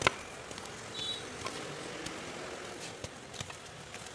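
Reformed gym chalk being crushed by hand: one sharp crack right at the start, then sparse light crackles and ticks. A brief high chirp sounds about a second in.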